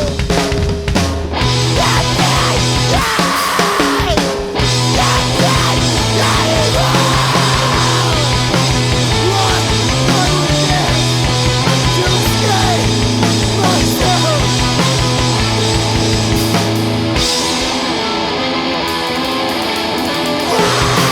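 Loud rock band recording with distorted electric guitars, bass and drum kit. About three-quarters of the way through, the bass and cymbals drop back for a few seconds, and the full band comes back in near the end.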